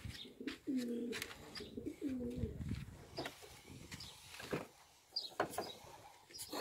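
A pigeon cooing, several low coos in the first two and a half seconds, followed by a few short knocks and rustles.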